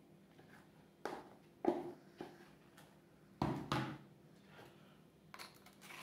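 Plastic spatula scraping thick quince paste out of a plastic tub and plopping it onto a tart base: a handful of short scrapes and soft knocks, the loudest a little past halfway.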